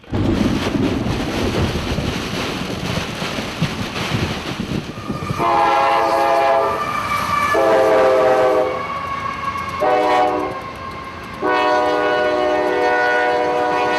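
Train rumbling and clattering by, then a locomotive's multi-note air horn blowing long, long, short, long: the standard grade-crossing signal.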